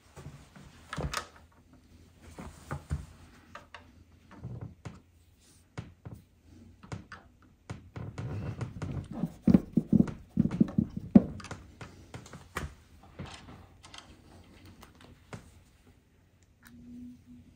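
Assembly handling noises: scattered clicks and knocks of a plastic bracket and a hand tool against a drawer panel, with a denser, louder run of knocks and scraping between about eight and eleven seconds in while the tool is pressed at the bracket.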